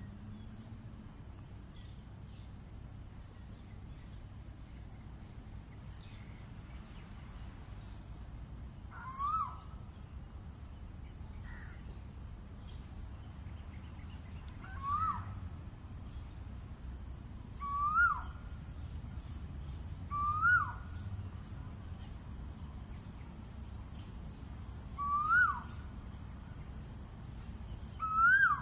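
Asian koel calling: six short, loud notes that rise then drop, spaced a few seconds apart, starting about nine seconds in. The series grows louder and slightly higher in pitch, over a low, steady background rumble.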